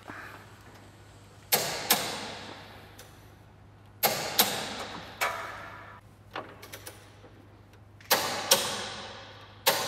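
Torque wrench clicking off as suspension bolts are pulled up to 129 ft-lb. There are three pairs of sharp metallic clicks a few seconds apart and one more near the end, each dying away over a second or so, with a few fainter clicks in between.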